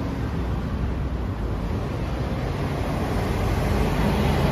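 Kawasaki KLX250's single-cylinder four-stroke engine, fitted with an FMF Powerbomb header, idling steadily, getting a little louder near the end.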